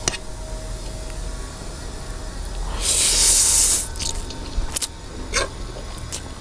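Mukbang eating sounds: one loud hissing mouth sound lasting about a second, a little under halfway through, among a few light clicks of cutlery.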